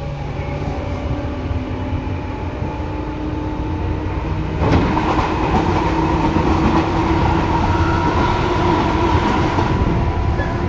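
Interior running sound of a Tobu 9000 series electric train: a steady rumble of wheels on rail with several steady tones over it. About four and a half seconds in, the sound suddenly becomes louder and fuller.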